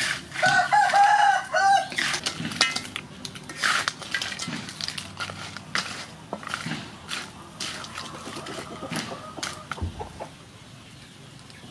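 A chicken calls with four short rising-and-falling notes from about half a second to two seconds in. Around and after it, a wooden spatula scrapes and knocks in a metal wok as crabs are stirred.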